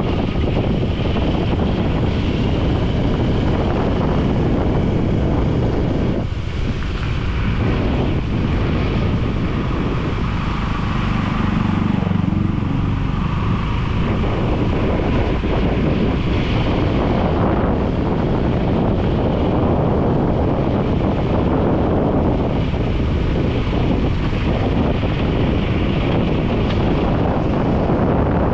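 Strong wind buffeting the microphone: a loud, steady, unbroken rush.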